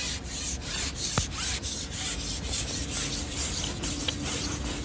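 Scratchy rubbing and rustling, a quick run of short hissy strokes about four a second, with one sharp click about a second in and a faint steady hum underneath.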